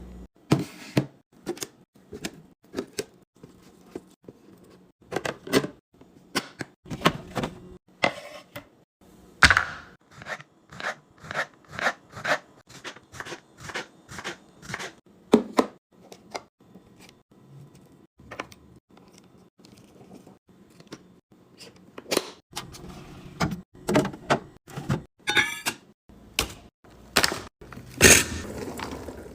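A long run of sharp clacks, thunks and knocks, often several a second with short pauses, as food packages and plastic storage containers are handled and set down during a fridge restock.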